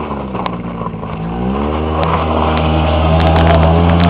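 ATV engine accelerating: its pitch dips, then climbs about a second and a half in and holds higher while it grows louder. A few sharp clicks near the end.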